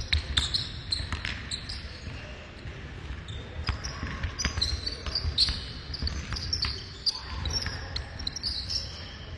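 A basketball dribbled on a hard indoor court in irregular thumps, with sneakers squeaking in short high chirps as the players cut and defend.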